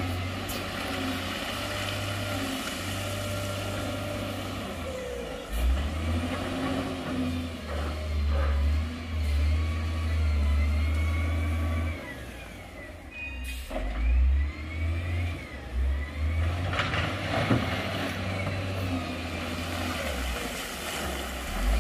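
Heavy construction machine's diesel engine running and revving, its revs rising and falling repeatedly from about a quarter of the way in, with a few sharp knocks.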